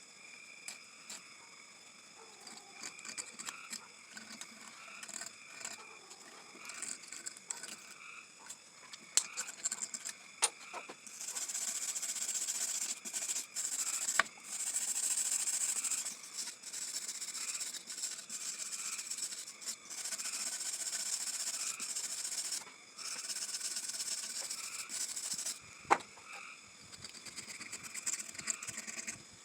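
Hand scraping and brushing of rust and old gasket residue off the thermostat housing seat of a 250 straight-six, using a razor blade and wire brush. About ten seconds in, small scattered clicks and taps give way to long scraping strokes of one to four seconds each, with short pauses between them.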